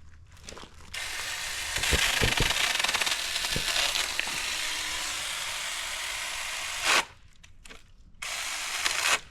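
Saker cordless mini chainsaw running and cutting through a branch, with a few knocks early in the cut. It cuts off suddenly about seven seconds in, then runs again briefly near the end.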